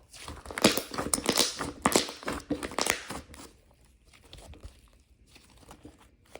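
Packaging crinkling and rustling as it is handled, a dense crackle for about three seconds, then softer, scattered rustles.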